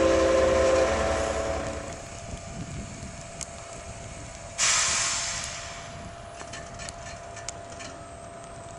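A V 60-type diesel shunting locomotive's engine thrums low, while two steady tones sound and die away within the first two seconds. About four and a half seconds in, a sudden loud hiss of compressed air starts and fades out over a second or so.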